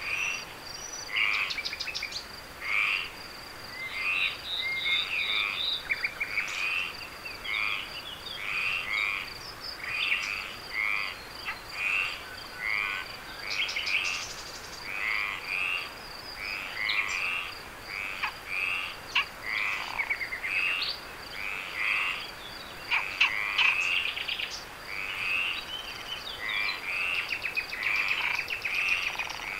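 Frogs calling in a night chorus, short calls repeating about once a second, over a steady high-pitched trill.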